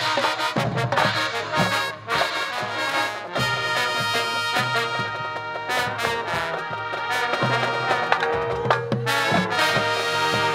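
Marching band playing: brass over drumline and front-ensemble percussion hits, settling into sustained brass chords about three seconds in.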